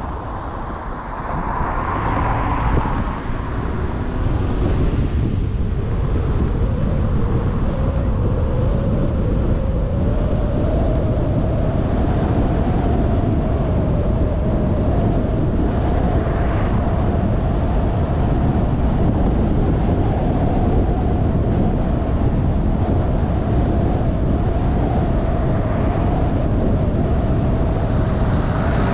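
Road and engine noise of a car being driven, with a whine that rises in pitch over several seconds and then holds steady.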